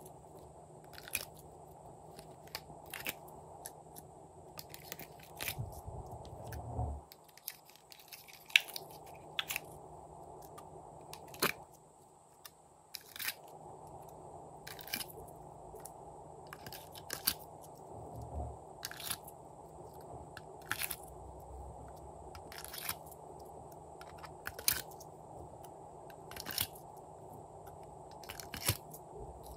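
Sharp clicks and crackles, one every second or two, of sticky slime being pulled out of a clear plastic compartment tray and set down in a glass dish, with a couple of soft low thuds, over a faint steady hiss.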